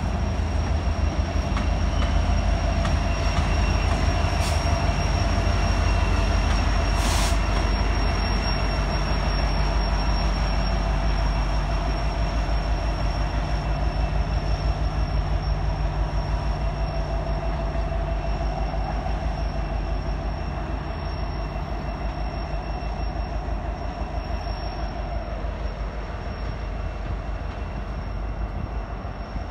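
Freight train of tank cars rolling past with a heavy rumble of wheels on rail and a thin steady wheel squeal. The rear Union Pacific diesel locomotive runs by as it pushes. The sound eases off over the last few seconds as the train draws away.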